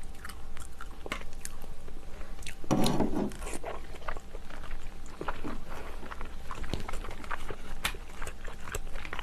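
Close-miked eating of seafood stew: wet chewing and mouth clicks, with a short voiced sound from the eater about three seconds in.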